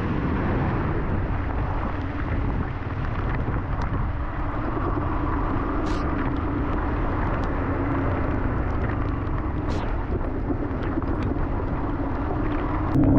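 Yamaha R15's single-cylinder engine running at a steady pace on the move, under steady wind and road noise on the bike-mounted camera's microphone, with a few faint ticks.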